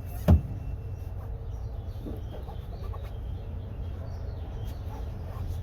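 A single sharp knock about a third of a second in, over a steady low rumble, with faint short chirping or clucking sounds in the background.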